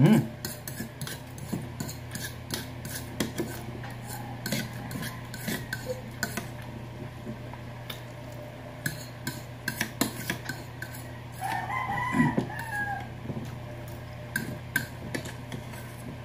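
Fork clinking and scraping against a ceramic plate while eating noodles, with a loud knock right at the start, over a steady low hum. A rooster crows once in the background about two-thirds of the way through.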